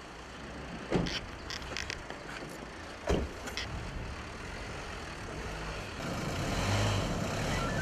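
A few sharp knocks and bumps against a car body as a man is pushed into an SUV, then, about six seconds in, a steadier car engine running as the white Dacia Duster moves off.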